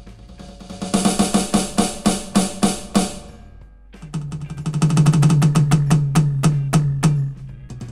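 Aroma TDX-25 electronic drum kit's sampled sounds from its module: a fast snare roll that swells from soft to loud about a second in and fades away near three seconds, then a fast roll on a tom, with a low pitch, that grows loud and eases off near the end. The rolls show the pads' response to soft and hard strokes.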